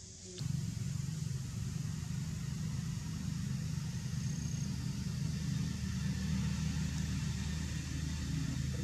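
A motor engine running steadily with a low rumble, starting suddenly about half a second in.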